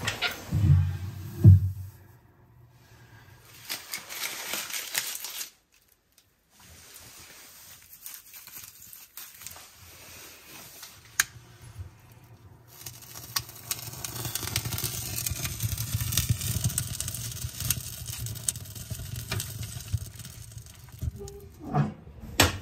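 A few knocks and thumps from handling at the start, then a wood fire of kindling in a cast-iron wood stove being lit and catching, crackling and popping with many small snaps that grow denser in the second half.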